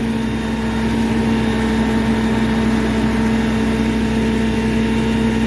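Tie truck's engine and hydraulic pump running steadily to power its knuckleboom grapple crane, with a constant even hum as the boom swings out.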